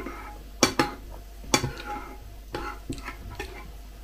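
Metal spoon clinking and scraping against a ceramic bowl while stirring and scooping cereal flakes in milk, with about five separate clinks.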